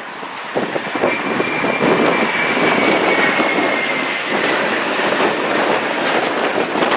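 Jet airliner passing low on a crosswind landing approach: a loud, steady rush of engine noise that swells about a second in, with a faint high whine slowly falling in pitch.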